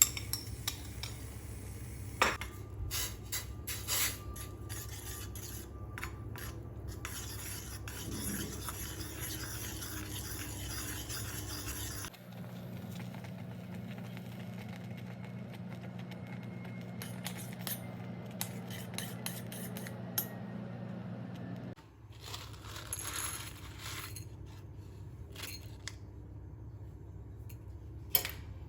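Kitchen utensils and dishes clinking, tapping and scraping while pastry is prepared. A steady low hum, as from a kitchen appliance, runs for about ten seconds in the middle, between sharp edit changes.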